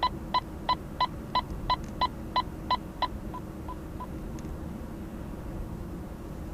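Intego Gold radar detector sounding its alert: short identical beeps, about three a second, getting fainter and stopping about four seconds in, warning of a Kordon radar speed camera on the K band, detected from behind. A steady car-cabin rumble runs underneath.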